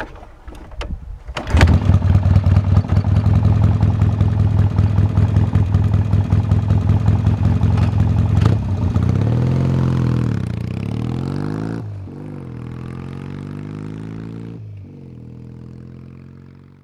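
Norton Dominator 650SS parallel-twin motorcycle engine starting suddenly about a second and a half in and running loud and steady. After about nine seconds it revs as the bike pulls away, its pitch rising and falling with breaks near gear changes, and it fades into the distance.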